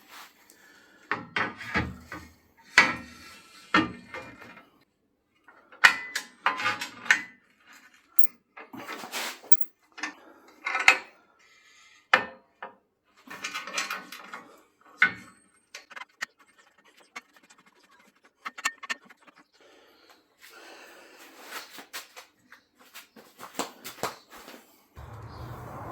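Metal parts being handled in a workshop: irregular clanks, knocks and scrapes of steel, with short pauses between them. A steady rushing noise comes in near the end.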